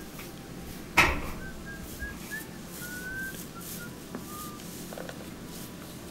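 A single sharp knock about a second in, from the dryer's sheet-metal cabinet being handled during reassembly. It is followed by faint, thin whistle-like tones that come and go for a few seconds.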